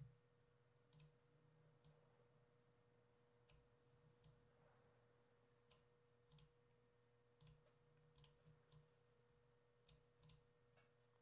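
Near silence, broken by a dozen or so faint, irregular computer-mouse clicks over a low steady hum.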